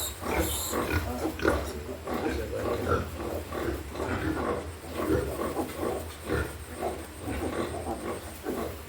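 Piglets making a steady run of short grunts and squeaks, several a second.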